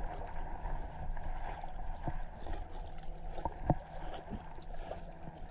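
Wooden Chestnut canoe being paddled: a steady wash of water swishing along the hull, with a couple of short knocks, the loudest about three and a half seconds in.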